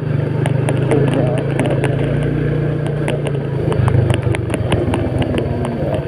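Small motorcycle engine running while riding over a rough, stony dirt track, with many quick clicks and rattles over the bumps. The engine note drops a little about two-thirds of the way in.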